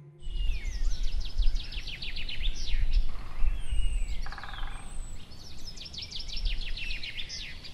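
Birds singing at a lakeside: two rapid runs of short, sharp, falling notes, with thin whistles and a brief buzzy call between them, over a low steady rumble of background noise.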